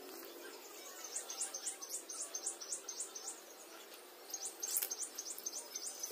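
Fast series of short, high chirps from a small animal, about four a second, in two runs with a brief pause around the middle.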